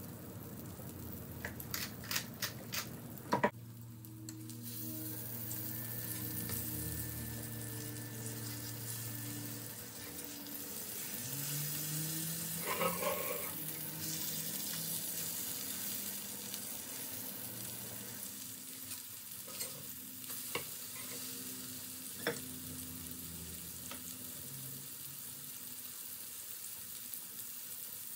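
Green tomato slices, fried from frozen, sizzling steadily in a frying pan. A few sharp clicks of a utensil against the pan come about two to three seconds in, and a few more later.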